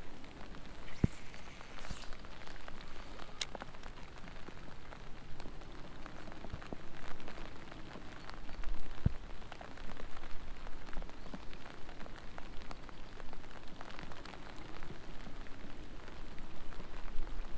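Steady rain falling on the river surface, with scattered sharp ticks of nearby drops.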